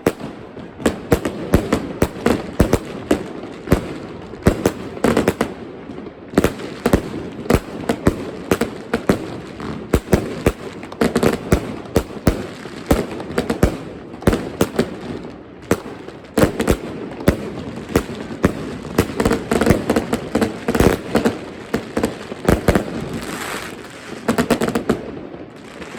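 WCKD Warlord consumer fireworks cake firing: a rapid, unbroken string of sharp shots and bursts, several each second.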